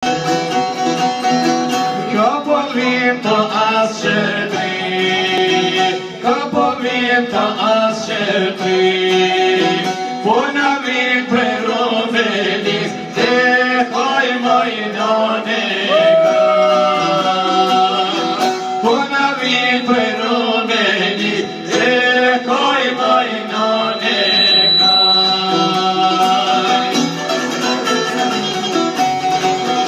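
Albanian folk song: a man's voice singing a long, ornamented melody over two plucked long-necked lutes, one of them a çifteli, strummed and picked in a quick, even pattern.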